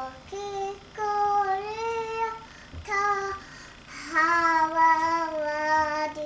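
A young girl singing a few drawn-out notes, the last one held for about two seconds.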